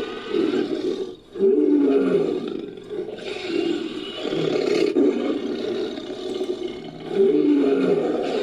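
Creature sound effect for a fictional pterosaur, built from mixed film-monster roars: a run of growling roar calls whose pitch slides downward, with a brief break a little over a second in.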